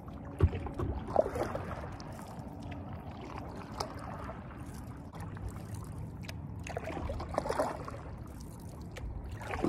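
Stand-up paddleboard paddle strokes: the blade dipping and pulling through river water in splashy surges, with dripping in between. Two sharp knocks come about half a second and just over a second in.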